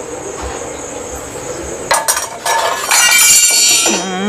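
Metal cookware clinking and clattering as a tawa griddle is set on a gas stove: a couple of sharp clinks about two seconds in, then a longer, ringing clatter.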